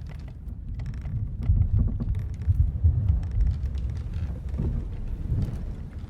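Sailing-ship ambience: an uneven low rumble of sea and wind against the hull, swelling a little after the first second, with scattered small creaks and ticks from the ship's timbers.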